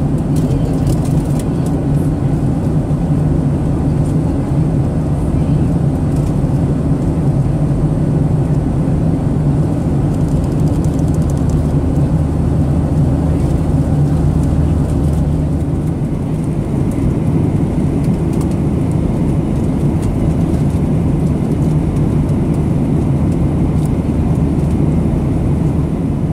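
Steady drone inside the cabin of a Boeing 737-800 in flight, with its CFM56-7B turbofan engines and the airflow over the fuselage making an even rushing noise over a low hum.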